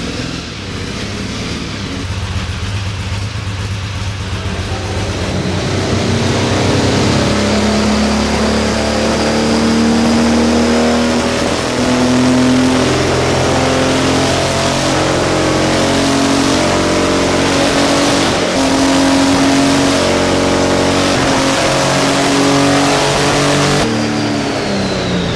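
Porsche 917 racing car's air-cooled flat-twelve engine running hard on a chassis dynamometer, driving the rear wheels on the rollers; it grows louder over the first few seconds, and the note falls away near the end.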